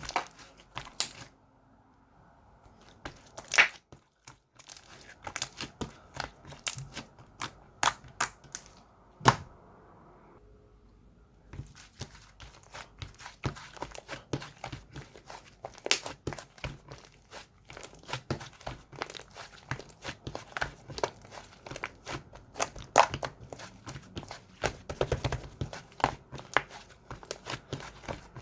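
Slime being squeezed and stretched by hand, giving a dense, irregular run of small sticky clicks and crackles, with a couple of brief quieter pauses.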